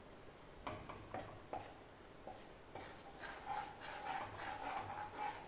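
Perforated steel skimmer ladle tapping a few times on a non-stick kadai, then scraping and stirring from about three seconds in as maida flour is mixed into melted ghee.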